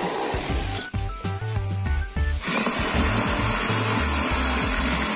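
Electric drill driving a reciprocating saw adapter, its blade sawing through a plastic bucket rim; it stops about a second in, leaving background music alone. About two and a half seconds in the sawing starts again, now cutting a length of wood, with the music still running under it.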